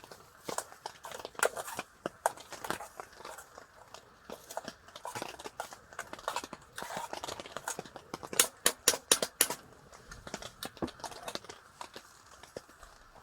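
Irregular rustling, crinkling and clicking of things being handled at close range, with a louder flurry of clicks about eight seconds in.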